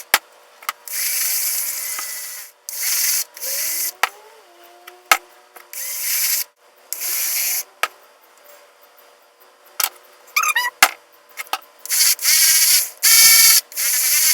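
Aerosol spray paint can sprayed in repeated short bursts of hiss, each about half a second to a second and a half, with sharp clicks in the gaps between them.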